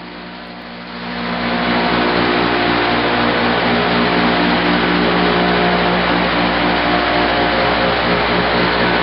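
Timesaver Vision orbital twin-pad sanding machine running, giving a steady mechanical hum with several steady tones over a hiss. It swells louder about a second in, then holds steady.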